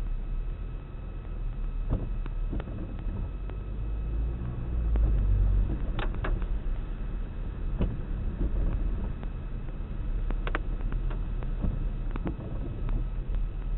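A car's road noise heard from inside the cabin while driving: a steady low rumble of tyres and engine, with scattered small clicks and rattles.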